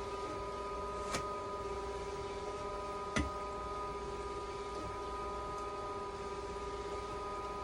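Haemodialysis machine running in dialysis mode, its power restored by a new plug: a steady hum with several constant tones, broken by two sharp clicks, one about a second in and another two seconds later.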